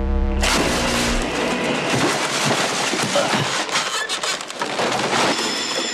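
A low amplifier hum, then about half a second in an electric guitar chord blasts through a huge overdriven amplifier as a loud distorted roar, mixed with the crash and clatter of objects blown around the room. The roar thins about five seconds in.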